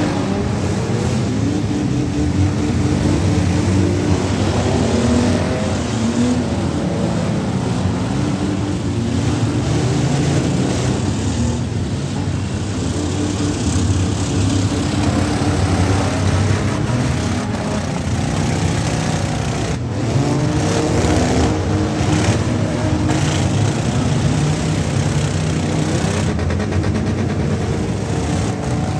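Several demolition derby cars' engines running and revving up and down at once, with a few sharp knocks of impacts in the last few seconds.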